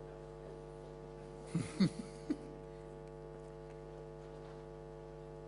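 Steady electrical mains hum, with a brief burst of sound about a second and a half in.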